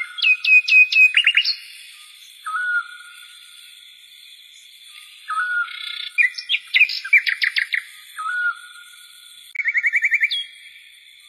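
Background music built from bird-like chirps and whistled trills. A short hooked note recurs every few seconds, with bursts of rapid trills and falling chirps over a steady high drone.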